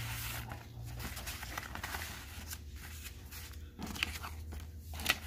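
Old paper, envelopes and cards rustling and crinkling as they are sorted through by hand, with a couple of sharper ticks near the end.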